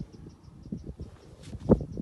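A sleeping Pura Raza Española (Andalusian) horse snoring: an irregular low rumble of breaths with one louder burst near the end. Crickets chirp steadily in the background.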